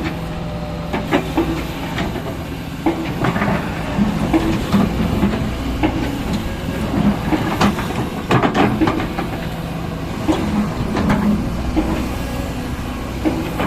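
Excavator's diesel engine running steadily, with irregular metallic clanks and clicks from the machine working.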